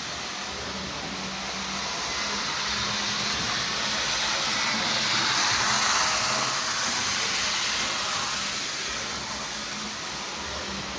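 Prewar American Flyer O gauge toy steam locomotive running on its track: a steady whirring rumble of its electric motor and wheels on the rails, with a faint steady hum. The sound swells louder around the middle and eases off again as the engine comes near and moves away.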